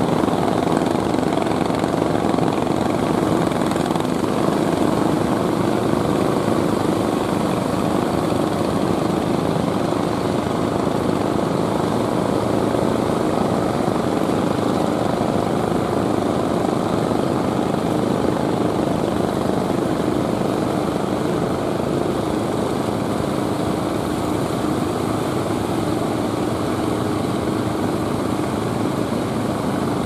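Small fishing-boat engines running with a steady, unbroken drone.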